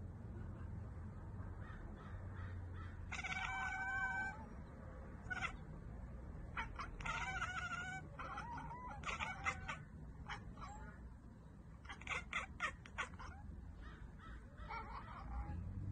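Domestic cats giving short, high calls in several separate bouts, the longest about three seconds in, over a low steady hum.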